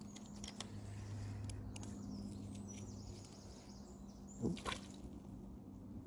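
Water dripping and splashing as a small grayling is played and drawn in on float tackle, with a few sharp little clicks in the first second.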